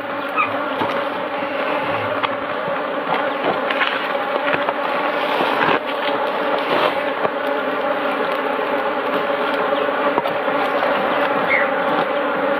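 Honeybees buzzing steadily around an opened hive frame, with scattered faint clicks of a knife cutting wax comb off the frame.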